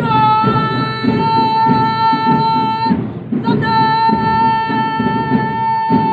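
Parade band music: steady drumbeats under two long, steady held notes, the first about three seconds and the second starting about half a second after it ends.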